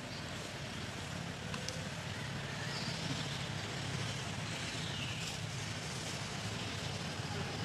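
Steady low rumble with a hiss over it, like distant traffic or wind in the outdoor background, with a few faint high-pitched gliding calls about three to five seconds in.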